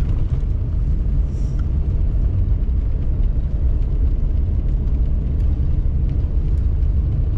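Steady low rumble of a vehicle driving on a snow-covered road, heard from inside the cab: engine and tyre noise.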